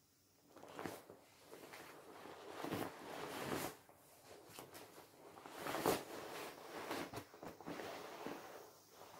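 Vinyl of a partly deflated inflatable swimming pool rustling and crinkling as it is squeezed and folded by hand, in irregular swells that are loudest about three and six seconds in.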